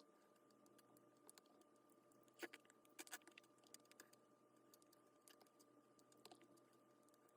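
Near silence with a few faint, sharp clicks or taps, clustered about two and a half to three seconds in, over a faint steady high hum.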